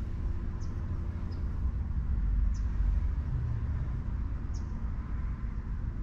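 Low outdoor background rumble, swelling a little a couple of seconds in, with a faint high chirp about every two seconds.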